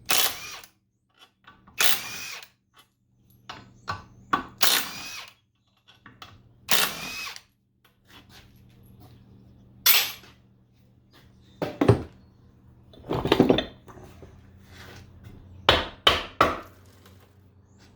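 A power drill or driver run in short bursts, about nine in all, a second or two apart, opening up a gearbox casing.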